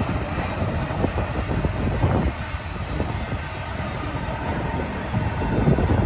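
Double-stack container train's well cars rolling past, the wheels rumbling on the rails with a continual run of clicks and knocks.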